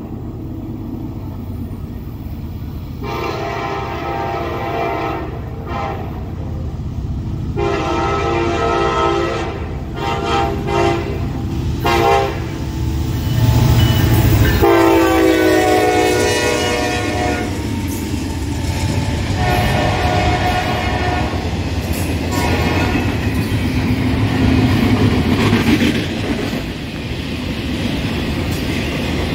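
Norfolk Southern freight locomotive sounding its horn in a series of long blasts as the train approaches. The last and loudest blast comes as the locomotives pass close by with a heavy engine rumble. The train's cars then roll past with a steady clatter of wheels on rail.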